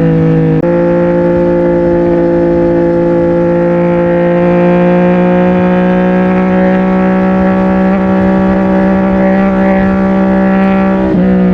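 CFMOTO 675NK's three-cylinder engine through a titanium full-system exhaust, running under way at a steady pitch. The note breaks briefly and shifts slightly about half a second in, and again near the end.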